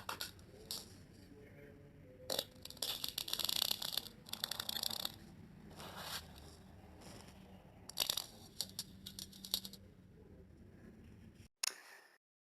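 Fart sound effect of wet, diarrhea-style farts: sputtering bursts in several clusters, the longest lasting about two seconds, cutting off abruptly near the end.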